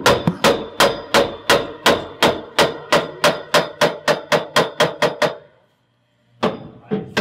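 A hammer striking a chromoly roll-cage tube to tap it into its notched fit, about three quick blows a second with a light metallic ring. The blows stop for about a second near the end, then start again.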